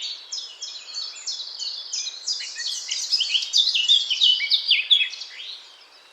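Eurasian blackcap singing: a fast, continuous warble of many short, varied notes that grows louder through the middle and trails off near the end.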